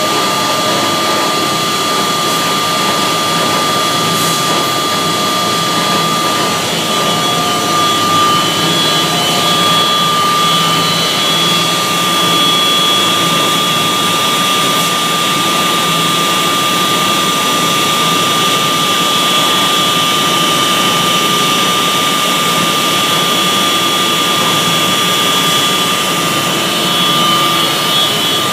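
Belt-driven machine with a freshly replaced pulley and V-belt running steadily, with a constant high-pitched whine over the running noise. It is an abnormal noise: the V-belt is slipping, and the owner suspects a bearing fault.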